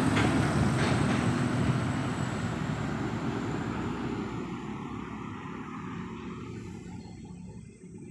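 A large road vehicle passing, its engine and road noise fading steadily as it drives away.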